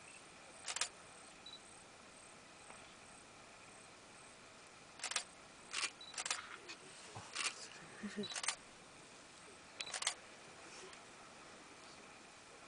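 Camera shutters clicking: single sharp clicks at irregular intervals, one about a second in and then a cluster of five or six over the middle of the stretch.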